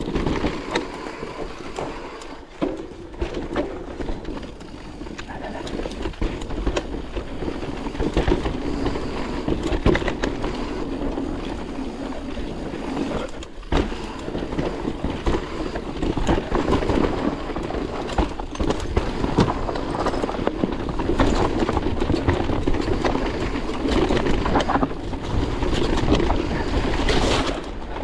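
Electric mountain bike riding fast down a dirt trail: continuous tyre noise over dirt and roots, with frequent clicks and knocks of the bike rattling over bumps and a low rumble of wind on the microphone.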